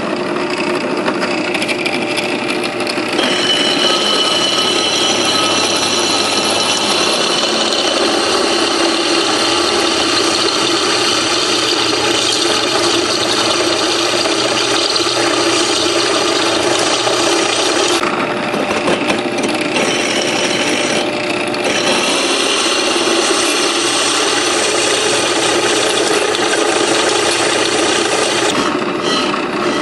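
Electric drill turning a step drill bit that cuts into a cast iron brake rotor, cleaning up the back edge of a newly drilled lug-stud hole. It runs steadily with a motor whine, easing off briefly twice midway and once near the end.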